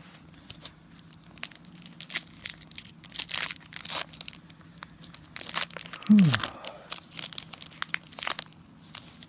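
Foil trading-card pack wrappers being torn open and crinkled by hand: a run of sharp crackles and tears. A brief low falling voice sound, like a grunt, comes about six seconds in.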